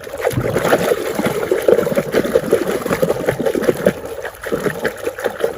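Water running and splattering over a mud-covered toy as it is washed clean.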